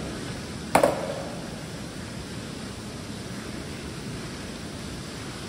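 A skateboard is dropped onto a concrete floor. It lands with one sharp clack about a second in, which echoes briefly. A steady hiss of background noise fills the rest.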